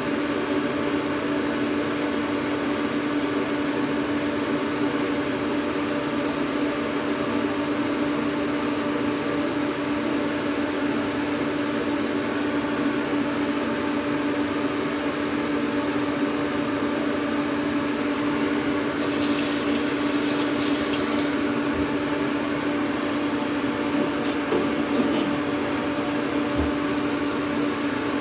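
Bathroom exhaust fan running with a steady hum and a low droning tone. About two-thirds of the way through there is a brief hiss lasting about two seconds.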